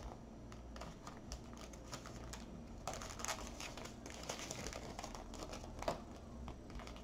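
Small plastic bags crinkling and rustling faintly as items are packed back into them, with scattered light clicks and taps.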